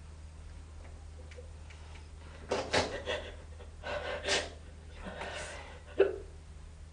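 A woman sobbing: several gasping, catching breaths in the second half, ending in one short, sharp gasp, over a low steady hum.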